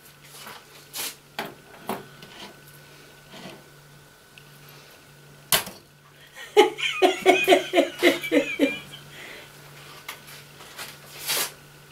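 A sharp crack as the shell of a boiled egg in an egg cup is tapped open, about five and a half seconds in. It is followed by a woman giggling for about two seconds, then a few lighter taps and clicks of shell.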